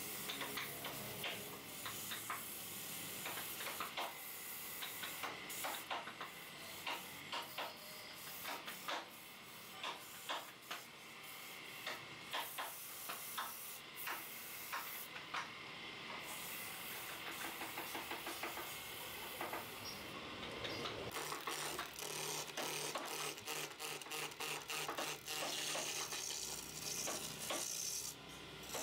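Wood lathe spinning a chair-leg blank while a hand-held turning tool works the wood: a steady hiss with rapid, irregular scratchy ticks. A low hum joins about three-quarters of the way through.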